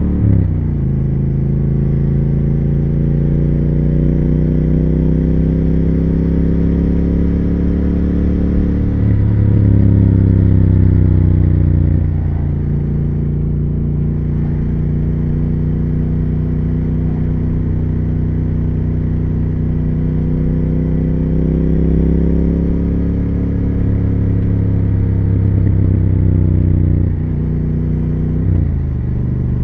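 Triumph Speed Twin 1200's parallel-twin engine and exhaust under way, its note slowly rising under throttle. The pitch drops suddenly several times, and it runs louder for a few seconds about a third of the way in.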